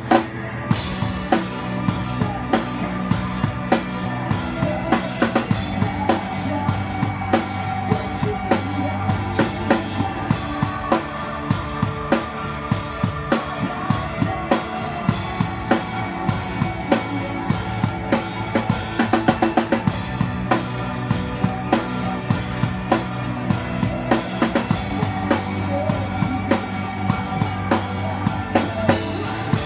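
Live band music with a drum kit keeping a steady beat of kick and snare over sustained bass and other instruments, with a quick drum fill about two-thirds of the way through.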